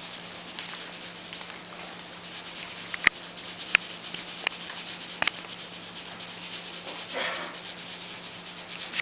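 Salt shaken from a cardboard pour-spout canister into a steel mixing bowl of batter: a soft steady hiss with four light taps a little under a second apart. It is going in where baking powder should go.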